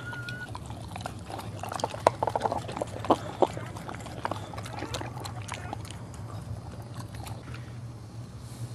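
Mother boxer licking a newborn puppy free of its birth sac: wet licking and slurping with scattered smacks, loudest about two to three and a half seconds in, over a steady low hum.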